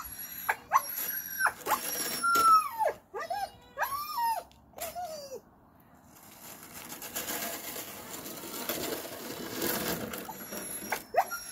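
A string of high, whining calls that bend up and down over the first half, then, after a short pause, a plastic snow shovel scraping across asphalt, growing louder toward the end.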